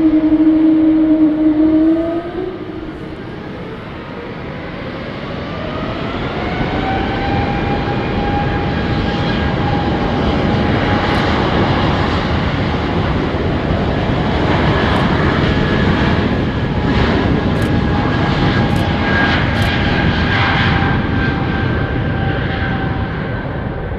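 Bombardier CS100 airliner's Pratt & Whitney PW1500G geared turbofans spooling up for takeoff. A louder steady hum falls away about two seconds in. Then a whine rises in pitch over several seconds and settles into a steady high whine over a growing roar as the jet starts its takeoff roll.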